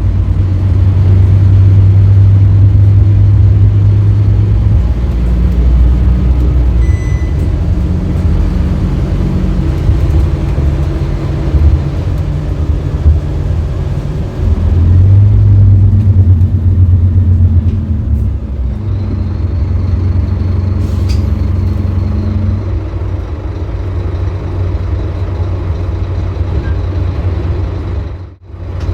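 Scania K310UB city bus's nine-litre five-cylinder diesel engine running under way, pulling hard, easing off and pulling again as engine speed changes. It drops out sharply for a moment just before the end.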